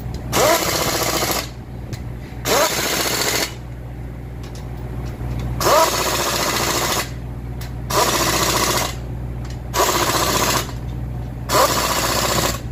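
Pneumatic impact wrench hammering on the nuts in six bursts of about a second each. Each burst opens with a short rising whine as the tool spins up.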